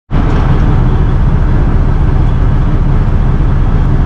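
Semi-truck diesel engine idling steadily, a loud low rumble heard from inside the cab.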